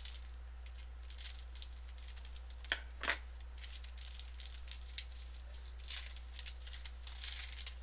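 Thin plastic packaging bag being snipped with scissors and torn open, a run of light, irregular crinkles and rustles, one a little stronger about three seconds in.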